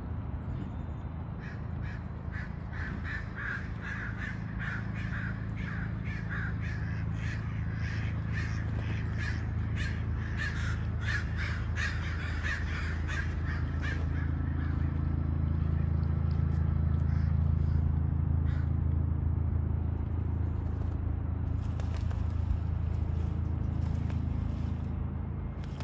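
Harsh bird calls repeated about twice a second for some twelve seconds, then stopping, over a steady low rumble that grows louder past the middle.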